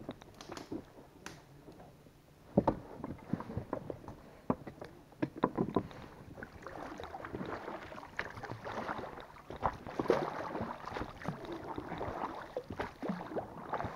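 Small boat being handled on the water: irregular knocks and clicks against the hull with water swishing, quiet for a moment early on, then busier knocking and swishing through the second half.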